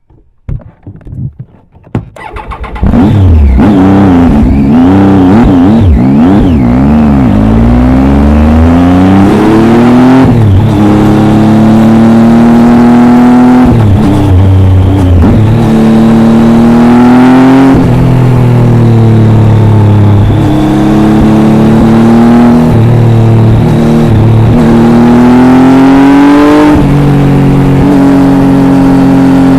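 Triumph Tiger 800 XRx's three-cylinder engine through an Arrow exhaust, coming in loud about three seconds in after a few faint clicks. The revs waver up and down briefly, then climb in repeated rising sweeps that fall back at each gear change as the bike accelerates.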